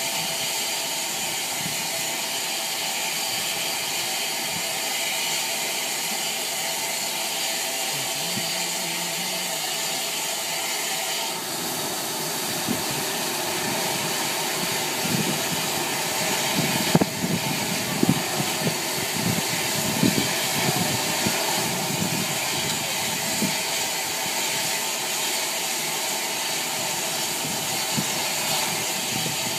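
Steam hissing steadily from the standing Bulleid Battle of Britain class locomotive, with a run of irregular knocks and thumps about halfway through.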